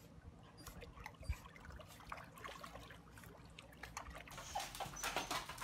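Dachshunds wading and paddling through shallow pool water: faint small splashes and trickling, getting busier near the end.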